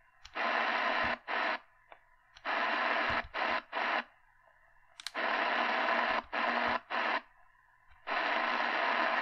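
Realistic DX-380 shortwave receiver hissing band static through its speaker in choppy bursts that cut to dead silence again and again as the frequency is stepped up: the radio mutes while tuning.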